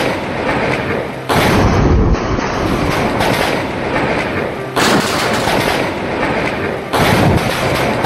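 Close lightning strike: three sudden, very loud thunder cracks a couple of seconds apart, each running on into a noisy rumble.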